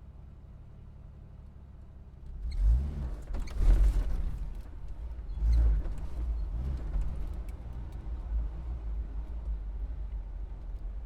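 Car engine idling low, then revving up in three loud surges that rise and fall in pitch a little after two seconds in, before settling into a steady run as the car pulls away.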